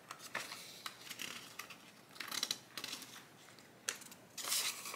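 Quiet rustling and small clicks of hands handling the clear vinyl pockets of a cash envelope binder and a paper banknote, with a louder stretch of rustling near the end.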